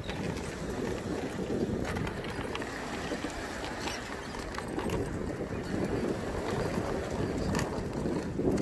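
Steady low rumble of wind buffeting the microphone, mixed with a mobility scooter rolling along wooden pier boards, with faint ticks scattered throughout.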